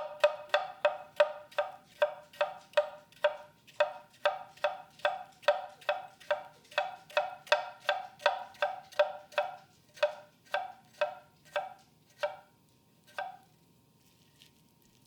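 Kogatana knife slicing cucumber, its edge knocking on the cutting board about three times a second in an even rhythm. The cuts grow sparser and stop about 13 seconds in.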